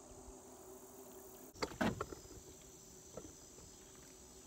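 Steady high-pitched chorus of crickets and other insects around a pond, with a brief loud clatter of sudden knocks about one and a half seconds in.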